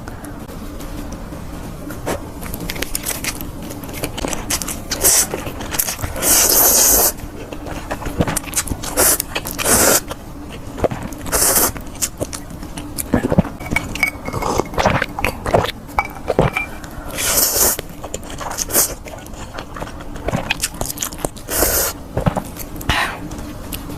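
Close-miked eating of fried skewers and noodles: irregular crunching, chewing and scraping clicks, with a few louder hissing bursts of about a second each.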